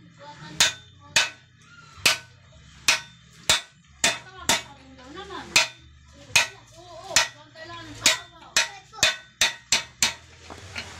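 Hand hammer striking metal at a bending jig, a steady series of sharp ringing blows about two a second, as a metal bar is shaped for grill scrollwork.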